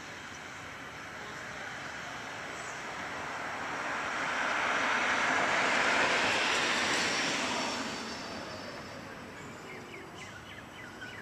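A vehicle passing out of view: a steady engine-and-road noise that swells to its loudest about halfway through, then fades away.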